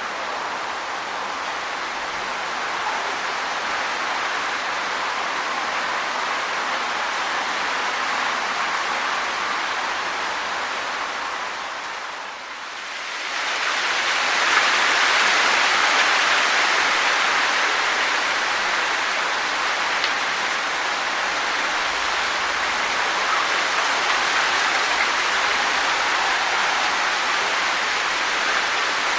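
Wind blowing through trees, the leaves rustling in a steady hiss. It dips briefly a little before the middle, then swells into a louder gust that eases off again.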